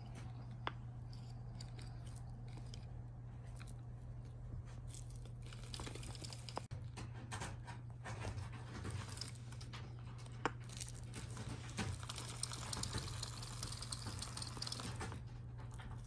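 Kittens playing: light pattering, scratching and rustling of paws and bodies on surfaces, with a few sharp clicks and knocks, growing busier about a third of the way in and busiest near the end. A steady low hum runs underneath.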